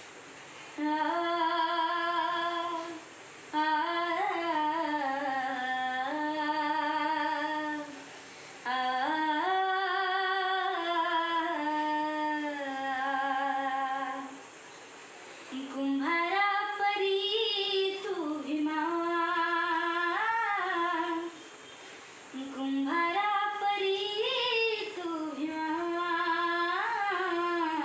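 A girl singing solo and unaccompanied, holding long notes with vibrato in phrases of a few seconds, with short pauses for breath between them.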